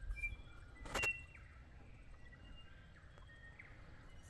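Faint birdsong of short chirps and thin whistled notes, with one sharp click about a second in.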